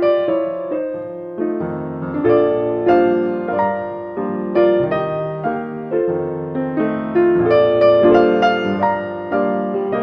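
Solo piano music, gentle notes struck one after another with chords beneath.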